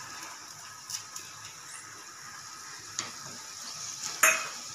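Carrots sizzling gently in a kadhai as frozen peas are tipped in and stirred with a wooden spatula, with a few light knocks and one sharp clack against the pan near the end.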